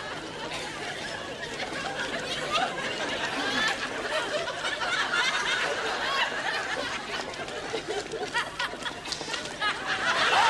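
Studio audience laughter: many people chuckling and laughing together.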